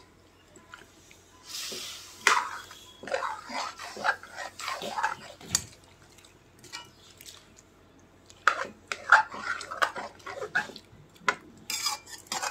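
Steel ladle scraping and clinking against an aluminium kadhai while stirring lemon pieces through thick spiced sugar syrup, in two bouts of quick knocks and scrapes with a pause between.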